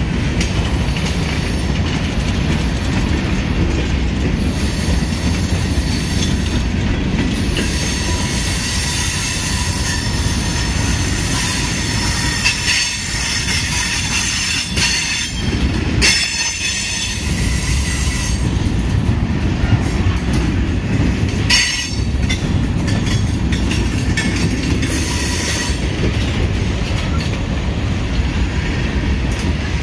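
Freight train cars rolling past: a steady rumble of steel wheels on rail, with high-pitched wheel squeal coming and going through the middle and a few sharp clanks.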